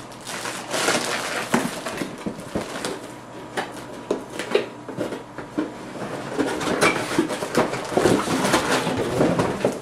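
Plastic air-cushion packing crinkling and rustling, and a cardboard box being pulled open and shifted about, with many small sharp crackles, scrapes and knocks.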